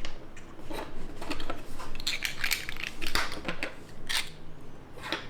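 Small plastic keycap boxes being opened and handled: a string of irregular plastic clicks, scrapes and crackles, busiest in the middle.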